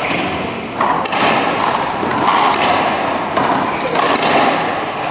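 Racquetball rally: about six sharp cracks of the ball off racquets and the court walls, each ringing briefly in the enclosed court.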